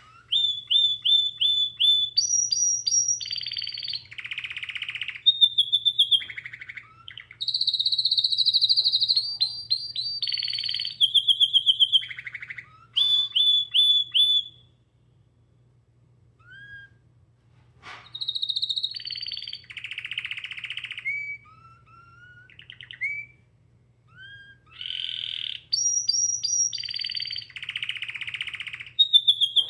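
Domestic canary singing a long, varied song of rapid repeated-note trills and buzzy rolls, pausing for a few seconds midway before starting again.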